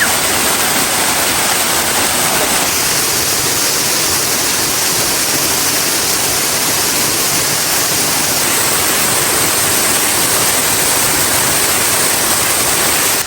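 River waterfall pouring steadily: a loud, even rush of falling water.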